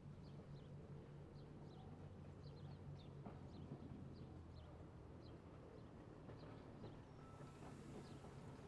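Near silence with faint small-bird chirps, short high notes about twice a second, over a low steady hum. A soft hiss comes in near the end.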